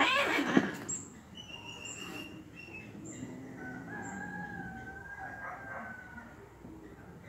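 Two domestic cats fighting: a loud screech as they grapple in the first second, then quieter as they break apart and face off. A faint, long drawn-out call lasts a couple of seconds around the middle.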